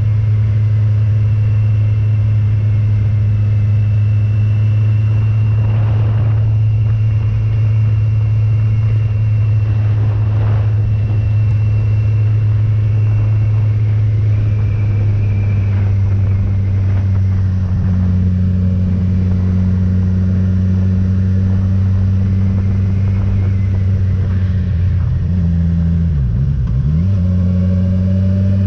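Motorcycle engine running steadily at an even pitch, with a quick drop and rise in engine pitch near the end.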